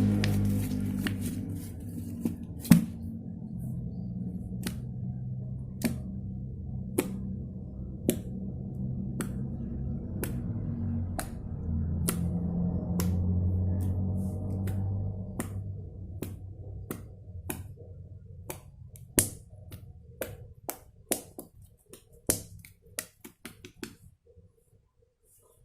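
Soft background music that fades out about two-thirds of the way through, under a string of sharp clicks. The clicks come about once a second at first, then quicker and more irregular near the end before stopping.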